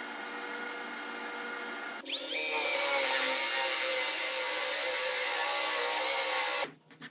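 A table saw runs steadily for about two seconds. Then a cordless drill spins up with a rising whine and bores a Forstner bit into a wooden board, running steadily for about four and a half seconds before it stops abruptly.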